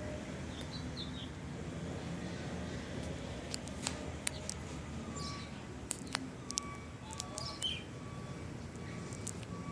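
A few short, high bird chirps and scattered sharp clicks over a steady low rumble.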